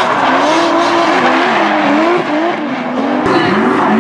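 BMW E36 drift cars sliding in tandem, their engines revving up and down again and again as the throttle is worked, over tyres squealing.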